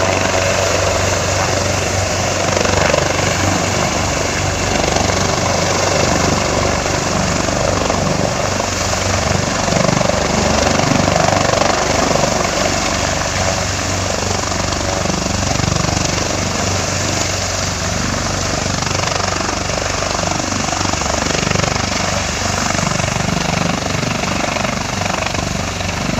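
Search and rescue helicopter running at close range, its rotor beating loud and steady.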